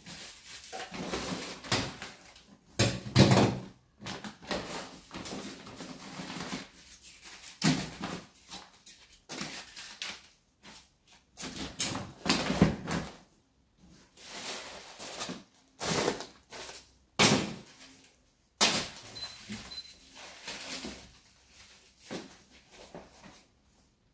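Plastic bags and wrappers rustling and crinkling in irregular handfuls as clutter is sorted and dropped into a plastic bin, with scattered bumps and knocks of things being handled.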